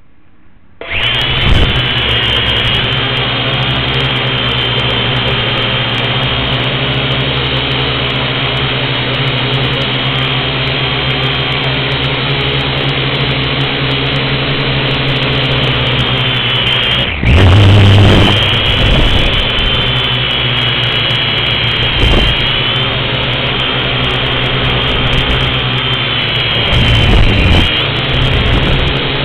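Syma X1 quadcopter's four small motors and propellers spin up about a second in, then run with a steady high whine, heard right up close from the camera on its frame. About halfway through the sound dips briefly and then surges louder for a second or so.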